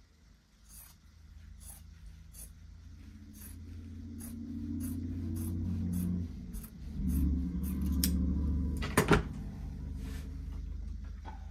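Scissors snipping through fabric in a run of short, crisp snips that come faster partway through, with a sharp double click, the loudest moment, near the end. A low rumble swells underneath through the middle.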